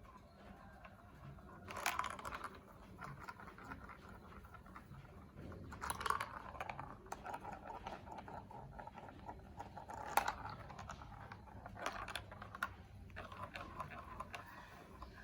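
Plastic marble run building blocks and their packaging being handled: scattered light clicks and crinkly rustles, with a few louder bursts every few seconds.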